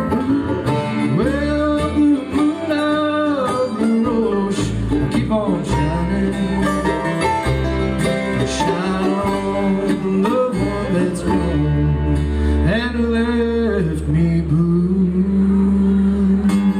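Bluegrass band playing live on acoustic string instruments: banjo, mandolin, acoustic guitar and upright bass.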